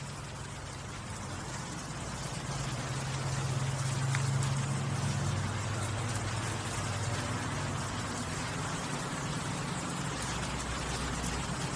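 A vehicle driving through a flooded street: a low engine hum under a steady hiss of splashing floodwater and rain, swelling to its loudest about four to five seconds in.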